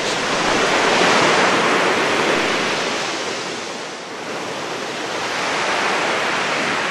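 Sea surf breaking and washing over a pebbly shore, a steady rushing that swells twice, dipping in between.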